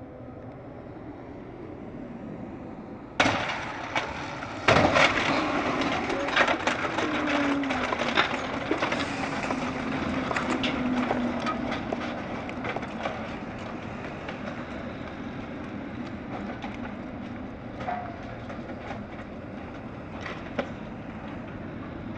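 Heavy lorries passing close by at speed, a loud rush of tyres and engine with the rattling and clattering of trailers. One passing lorry's tone falls as it goes by, and the traffic noise then slowly eases off.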